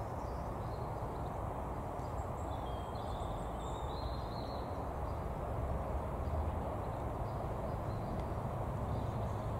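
Steady outdoor background rumble, with a few faint bird chirps about three to four seconds in.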